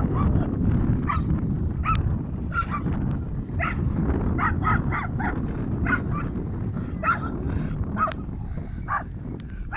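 A dog barking repeatedly in short, high yelps, bunched closer together in the middle, over a steady low rumble of background noise.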